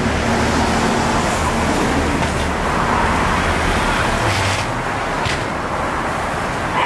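Steady road traffic noise with a low hum, and a couple of short, light clinks about two-thirds of the way through.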